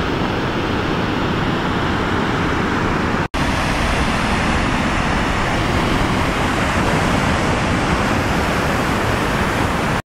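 Gullfoss waterfall's rushing water, a loud steady wash of noise, broken by a split-second gap about three seconds in.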